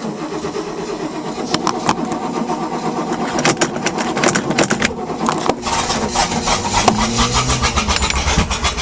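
Starter motor cranking a Mercury MerCruiser 5.7 V8 boat engine in a steady rhythm for nearly nine seconds without it starting, then stopping. It is a jump-start attempt on a battery that will not hold a charge.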